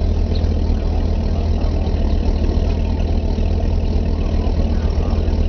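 Ford Thunderbird's engine idling steadily, a deep even rumble heard from inside the car's cabin.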